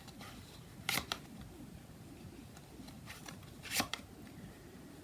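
Tarot cards being shuffled and handled: soft card rustling, with two louder riffle-like strokes about a second in and just before the four-second mark.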